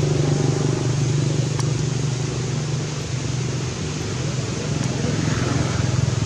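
A steady low motor hum under a constant hiss.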